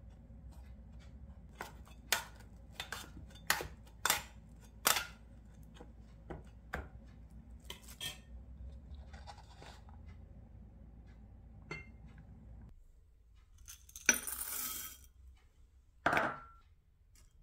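Silicone spatula pressing and tapping a crumbled waffle-and-butter base into a square metal cake ring, with a string of sharp clinks and taps as it knocks the crumbs and the ring. After a cut, a short rattle and one more clink near the end.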